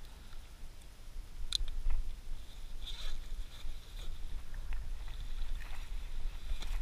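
Hands handling a GoPro camera and nearby gear: a few sharp plastic clicks and rustles, over a steady low rumble of wind on the microphone.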